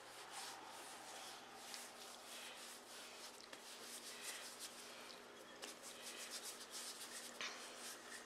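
Faint rubbing of hands rolling brioche dough into ropes on a countertop, with soft strokes as the dough is pushed back and forth.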